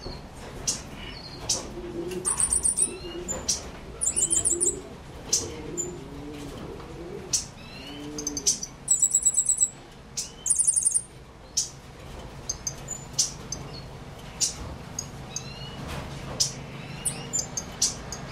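Caged yellow-faced grassquits (tomeguín de la tierra) calling: a steady scatter of short, high chirps, with four brief bursts of a thin, very high buzzy trill, the song. Low cooing notes run underneath through the first half.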